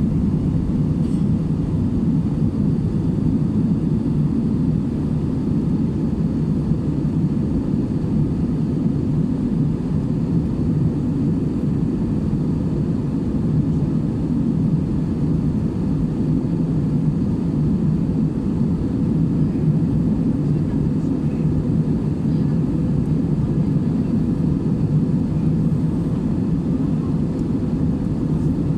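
Steady drone of a passenger airliner in flight, engine and air noise heard from inside the cabin.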